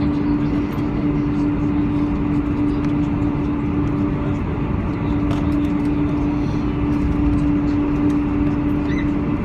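Steady noise of a Boeing 747-400 airliner, its engines and airflow giving an even rush with a constant low hum that drops out briefly about halfway through.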